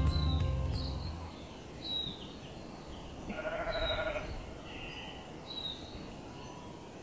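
A sheep bleating once, a wavering call lasting about a second near the middle, over quiet outdoor ambience with a few short high chirps.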